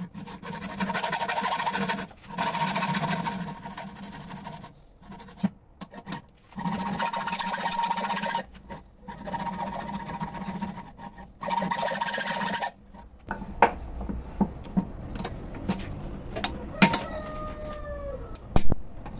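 Hacksaw blade sawing back and forth through a plastic CDI box potted with sand and glass, in long rasping stretches with a steady ringing tone, the blade barely cutting. About two-thirds through the sawing stops and the casing cracks and snaps in a string of sharp clicks and short squeaks as it is bent apart with locking pliers.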